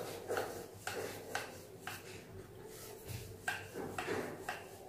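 Wooden rolling pin working over a round wooden rolling board as a stuffed flatbread is rolled out, giving a series of light wooden knocks and clacks with a quieter stretch in the middle.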